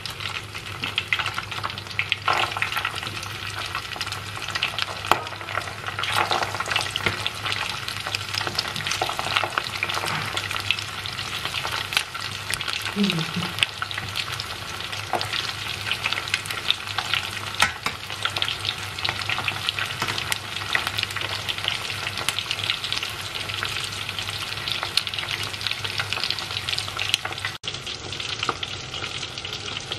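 Minced-chicken toast squares (khanom pang na gai) deep-frying in hot oil in a steel pot, with a dense, steady crackle and sizzle full of small pops. A low steady hum runs underneath.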